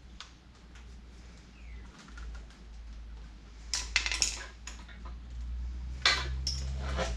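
Clicks and clacks of a bicycle hand-brake lever being squeezed and released to check the cable tension, in two quick clusters about four and six seconds in, with lighter tool clicks before them.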